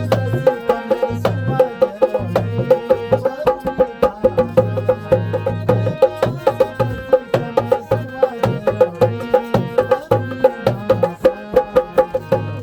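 Instrumental folk music with a fast, steady percussion beat of sharp clicks over a repeating deep drum pulse and a held melody.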